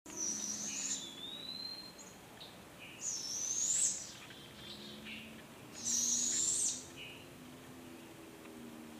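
Barred owls giving high, raspy screeching calls, three in all about three seconds apart, each rising at the end, with a softer rising whistle just after the first.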